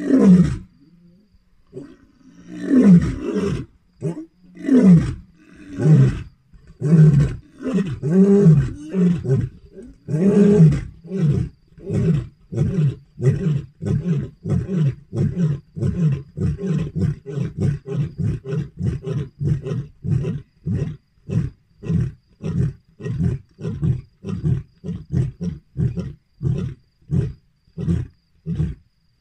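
Male lion roaring: several long, deep roars that fall in pitch, then a long run of short grunting roars at about two a second, the typical trailing end of a lion's roaring bout.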